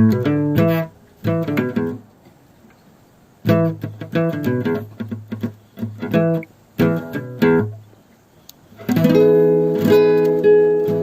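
Acoustic guitar music: plucked and strummed phrases broken by two short pauses, turning to steady ringing chords in the last couple of seconds.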